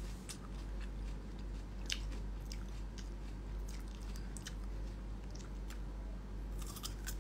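A person biting and chewing raw carrot, with irregular crisp crunches.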